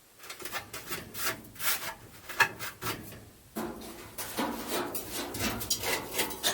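Irregular scraping and rubbing strokes as the calcium-crusted plastic parts of a drum-type furnace humidifier are worked apart and handled.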